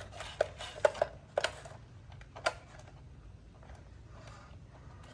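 About six sharp, irregular clicks over the first two and a half seconds, then only a faint low hum.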